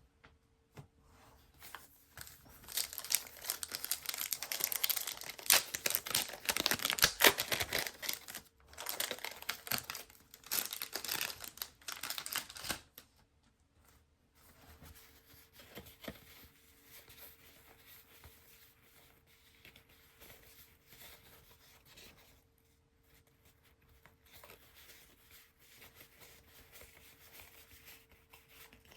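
A paper trading-card pack wrapper being torn open and crinkled: loud ripping and crackling for about ten seconds. This is followed by softer rustling of trading cards being handled.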